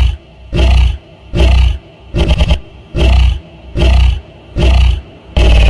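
A large wild animal giving a regular series of loud, deep roaring grunts, about one a second, each lasting about half a second.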